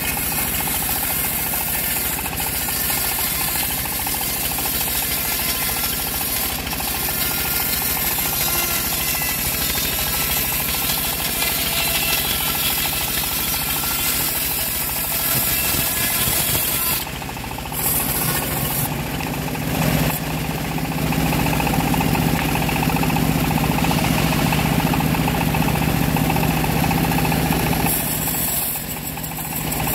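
Homemade bandsaw mill running, its blade sawing lengthwise through a large acacia log with a continuous, loud mechanical din. The sound drops briefly about two-thirds of the way through, then runs steadier and a little louder before dipping again near the end.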